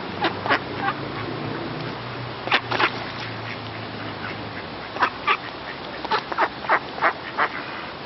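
Mallard ducks quacking in short calls: a few near the start, two more about a third of the way in, then a quick run of about eight quacks in the second half.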